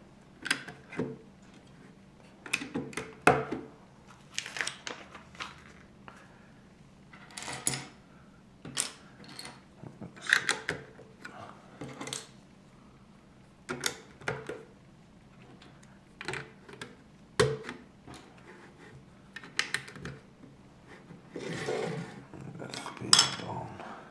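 Small plastic LEGO pieces clicking and clattering as they are handled and picked out, in irregular bursts of sharp clicks with short pauses between.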